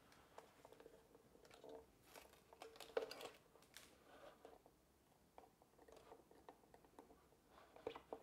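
Faint ticks and rustles of a violin string being handled and threaded onto a violin, with a sharper click about three seconds in.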